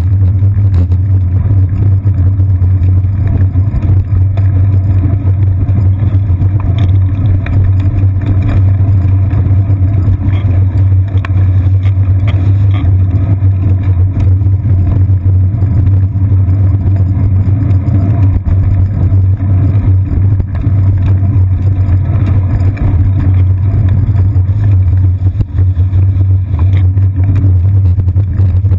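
Steady low rumble picked up by a GoPro Hero 2 mounted on a bicycle's seat post while riding: wind and road vibration on the camera, with motor traffic close behind.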